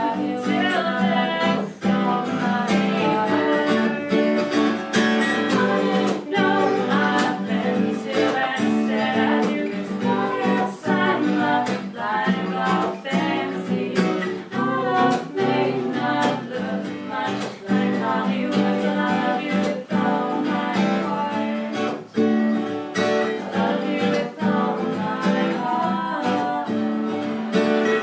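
Women singing a song to a strummed acoustic guitar accompaniment, the guitar strokes steady and regular under the voices.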